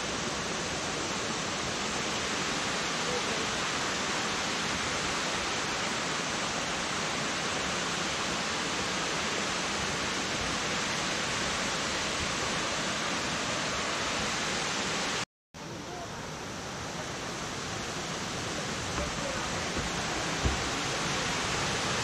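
Steady rush of water falling over the tiered cascades of Kuang Si Falls. It cuts out for a moment about fifteen seconds in, then returns slightly quieter and gradually swells again. Two small ticks come near the end.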